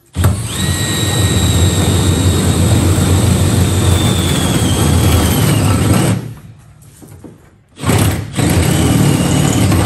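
Cordless drill boring through the car's floor decking: a loud motor whine over a heavy grinding rumble, held for about six seconds, the whine sagging slightly in pitch toward the end, then a second run of about two seconds after a short pause.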